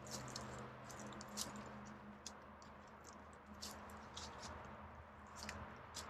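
Faint, irregular crackling and clicking in small clusters, over a low hum that fades out about two seconds in.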